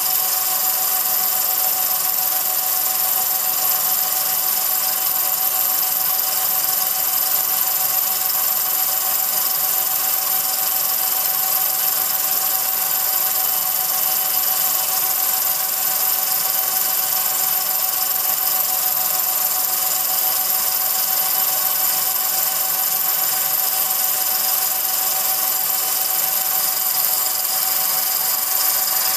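Home-movie film projector running: a steady mechanical whir with a high hiss and a few fixed whining tones.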